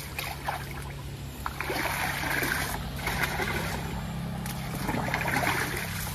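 Water sloshing, splashing and trickling as a long-handled scoop is dipped into a shallow ditch and its load is tipped out. It comes in a few spells of a second or so each.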